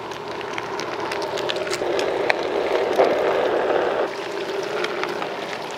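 Onewheel electric board rolling over concrete and asphalt: a steady rumble from its single wide tyre with scattered small ticks. The rumble gets louder about two seconds in and drops back about four seconds in.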